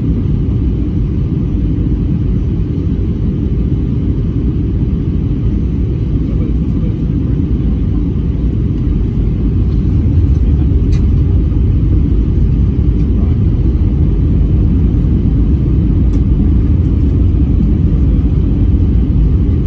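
Jet airliner cabin noise heard from a window seat over the wing during descent: a steady deep rumble of engines and airflow, growing a little louder about halfway through.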